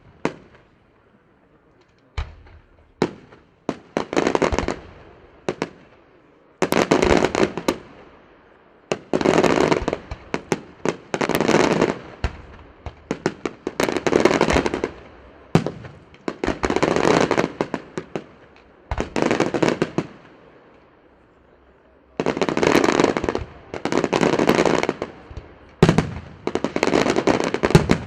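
Aerial firework shells bursting one after another, each sharp bang followed by a second or so of dense crackling, with short lulls between volleys.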